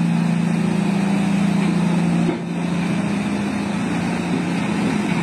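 Large mining haul truck's diesel engine running with a steady low drone while the truck tips its raised dump body; the level and pitch drop slightly a little over two seconds in.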